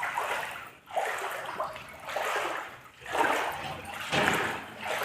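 Shallow water in a swimming pool splashing and sloshing in repeated surges a little over a second apart.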